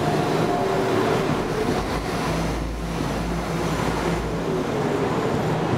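A Class 172 Turbostar diesel multiple unit moving along the platform, its diesel engine running with a steady note over a low rumble from the wheels.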